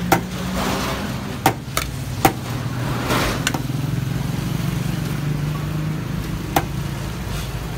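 Metal knife and spatula clicking and scraping against a plate and a steel serving tray as rice and beef are dished out: several sharp, irregular clicks, most of them in the first few seconds. Under them runs a steady low engine hum.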